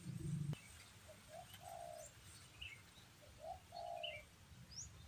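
A dove cooing twice in the background, each call a short rising note and then a longer held one, with small birds chirping higher up. A low hum cuts off about half a second in.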